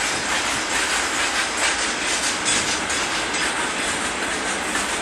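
Russian freight train passing close by: a steady, loud rush of wagon wheels running on the rails, with faint clicks.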